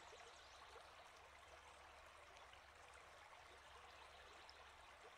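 Near silence: a faint, steady hiss with a low hum underneath, the quiet background bed of the recording.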